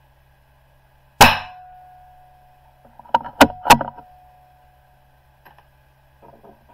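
A .22 rimfire benchrest rifle fires a single shot about a second in, leaving a faint ring. About two seconds later come three sharp metallic clacks in quick succession as the rifle's bolt is worked to eject the case and chamber the next round.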